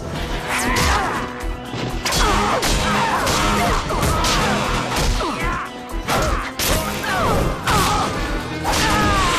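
Cartoon fight sound effects: a rapid string of whacks, punches and crashing impacts, one after another, over action music.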